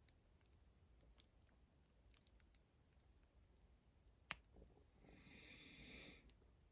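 Near silence with faint scattered clicks of small objects being handled, one sharper click about four seconds in, and a brief soft rustle near the end.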